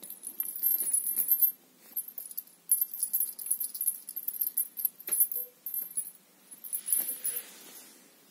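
Small bell on a feathered cat-teaser wand jingling as the wand is shaken, in three bursts of rapid jingles.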